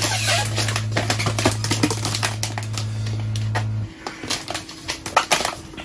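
Irregular crackling and clicking of plastic protective wrapping being handled on a new iMac. A steady low hum under it cuts off suddenly about four seconds in.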